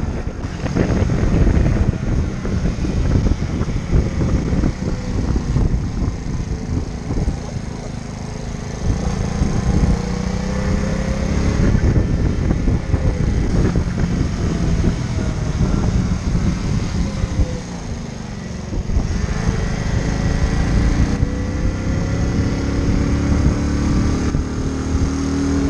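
Small 50cc motorcycle engine running under way, its note rising and falling as the throttle opens and eases, sliding down for a few seconds past the middle and climbing again later. Wind and road noise rush on the microphone throughout.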